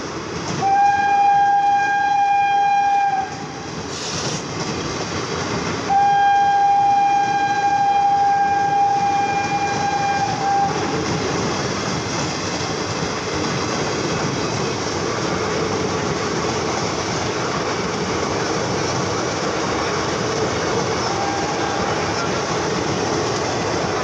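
Horn of a WAG-5 electric locomotive sounding two long blasts on one steady note, the first about a second in and a longer one from about six to eleven seconds in, with a faint short note again near the end. Under it runs the steady noise of passenger coaches rolling past.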